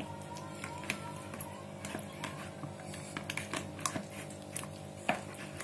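Hands squeezing and turning raw chicken leg pieces in a sticky soy sauce and honey marinade in a plastic bowl, giving irregular wet squishes and clicks, over quiet background music.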